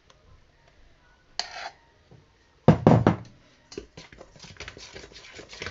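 A few loud knocks against a stainless steel mixing bowl about three seconds in, then a metal spoon clicking and scraping quickly around the bowl while banana paste is stirred into flour.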